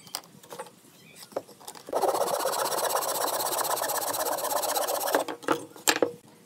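Fine-toothed handsaw cutting through a thin pine strip, a steady rasp for about three seconds. A few sharp knocks follow near the end.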